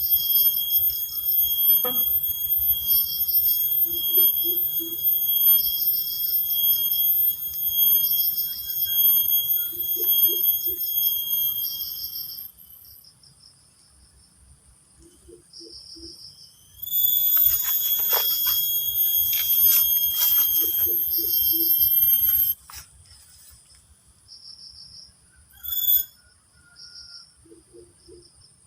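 Insects calling: a steady high-pitched drone that stops about twelve seconds in and starts again a few seconds later, over a pulsing chirp repeating about once a second, with short low three-note calls every few seconds.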